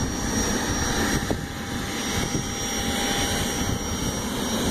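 Jet aircraft engine noise across an airfield: a steady low rumble with a thin high whine over it.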